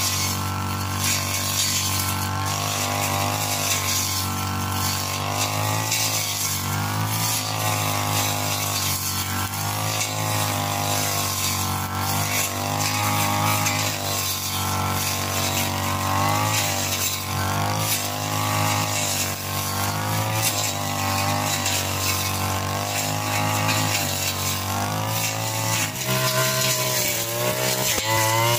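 Backpack brush cutter's small petrol engine running at high revs while cutting grass, its pitch wavering up and down every second or two.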